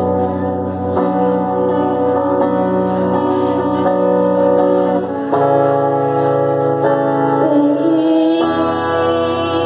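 Guitar playing held chords that change every few seconds, a live solo performance.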